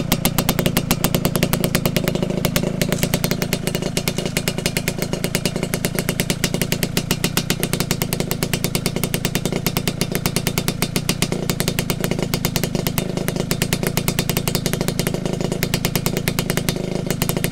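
Kawasaki KSR80's two-stroke single-cylinder engine idling steadily through a down-type expansion chamber exhaust, with a rapid, even pulsing.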